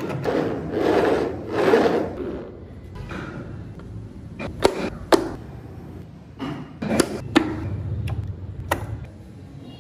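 A carved cypress-wood model pickup truck handled on a tabletop: two rushing swells as its wooden wheels roll along the surface, then a handful of sharp wooden clicks as its door and tailgate are opened and shut.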